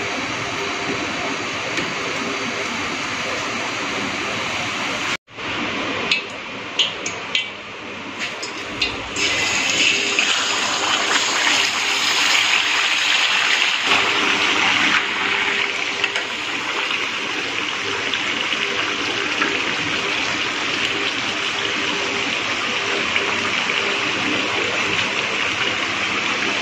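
Cooking oil pouring into an iron karahi, then, after a break about five seconds in, a leg of mutton frying in the hot oil: a few crackles, then a loud, steady sizzle from about nine seconds on as it is lightly browned.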